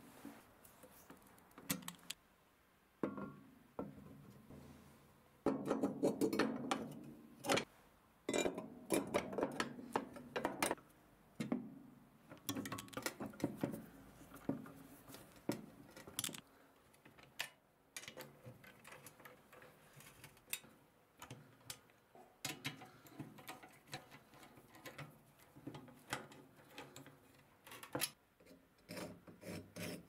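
Screwdriver and nut driver turning screws into the metal and enamelled parts of an antique gas heater. Scattered sharp clicks and knocks of metal on metal, with stretches of scraping and rubbing.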